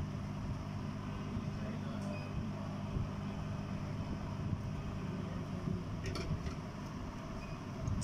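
Hot-air rework station blowing steadily on a phone charging port as its solder is melted to desolder it: a continuous airy hiss over a low motor hum. A few light clicks come about six seconds in.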